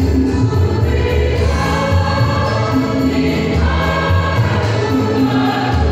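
Women's church choir singing a gospel hymn together, with a low accompaniment of steady bass notes that change every second or so underneath the voices.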